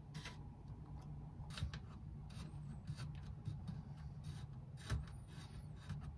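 Faint, irregular small clicks and scrapes of the nut on a braided quarter-inch supply hose being threaded by hand onto a bidet's inlet fitting, over a low steady hum.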